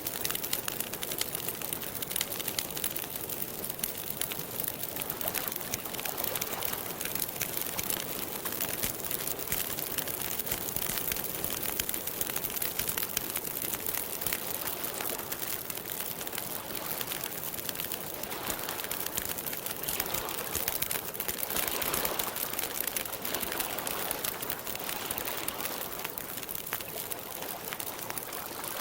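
Campfire crackling: a dense stream of small pops and snaps over a steady hiss, swelling a little about two-thirds of the way in.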